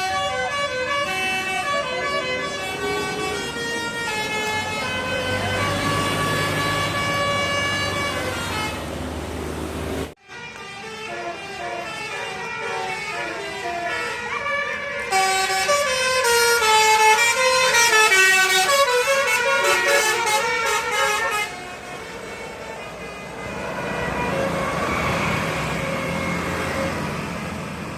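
Basuri telolet multi-tone bus horn playing quick melodies of stepped notes. A hard cut about ten seconds in starts a second, louder melody, which gives way to a noisier rumble with only faint notes for the last few seconds.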